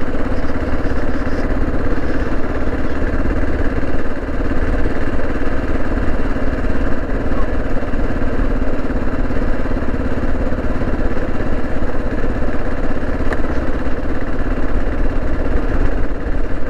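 Kawasaki KLR 650's single-cylinder four-stroke engine running at a steady pace, with no clear revving.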